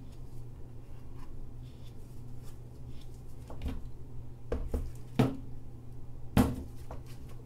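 Silicone spatula scraping thick soap batter out of a plastic mixing bowl, with soft squishy scrapes, then a few sharp knocks about four and a half, five and six and a half seconds in, the last the loudest.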